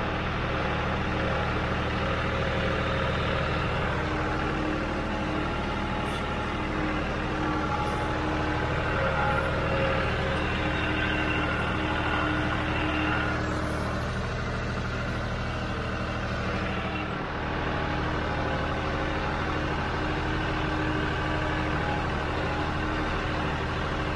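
John Deere utility tractor's diesel engine running steadily as the tractor drives through tall grass, a constant drone with a few steady higher tones over it.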